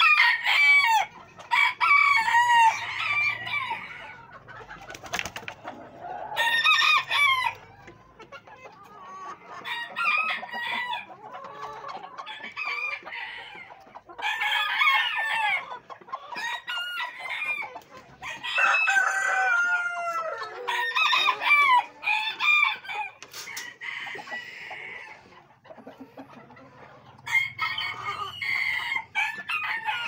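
A flock of Silver Sebright bantam chickens clucking and calling in repeated bouts a few seconds apart, some calls falling in pitch.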